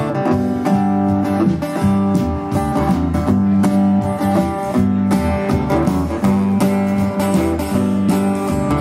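Live band playing an instrumental passage: strummed acoustic guitar over electric bass and drums, at a steady beat.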